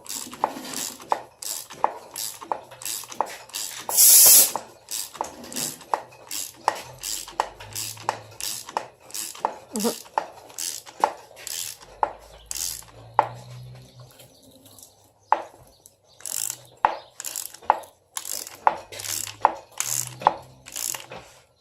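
Repeated sharp metallic clicks, about two a second, from hand tools working on the engine's crankshaft pulley bolt. A brief loud hiss sounds about four seconds in.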